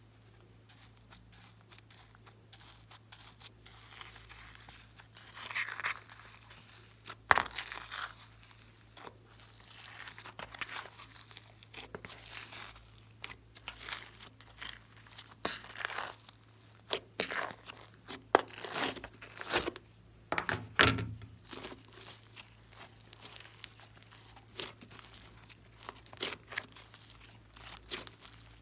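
Glitter slime being peeled out of a container and stretched and squeezed by hand, giving irregular sticky crackles, pops and tearing sounds. The first few seconds are quiet, and a few sharper snaps stand out later.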